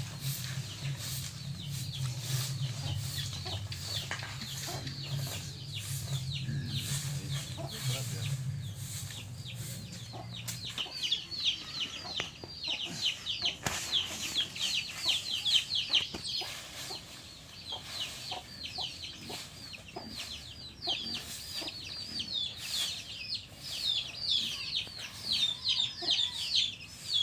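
A grass broom sweeping a packed-dirt yard in repeated strokes. A low drone runs under the first ten seconds or so, and from about eleven seconds in, birds chirp in quick high falling notes.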